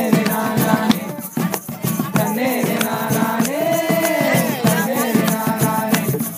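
Amateur group music: singing over acoustic guitar, with hand drums and an egg shaker keeping a steady rattling beat.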